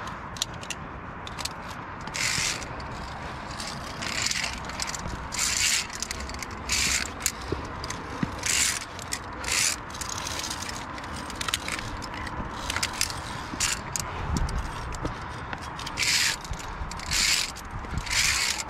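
Via ferrata carabiners scraping and clinking along the steel safety cable as the climber moves up, in short irregular scrapes roughly every second or two.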